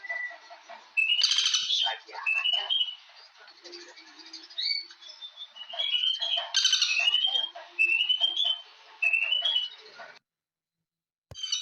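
Birds calling: a run of short, rising chirped notes repeated over and over, broken twice by a louder, harsher call. The sound cuts out for about a second near the end, then comes back with a click.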